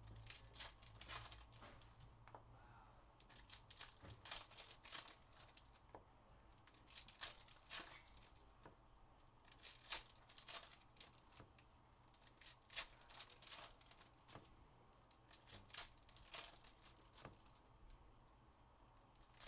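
Foil-wrapped football card packs being torn open and crinkled by hand: faint tearing and rustling in short clusters every two or three seconds.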